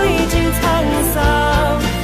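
Background music: a song playing.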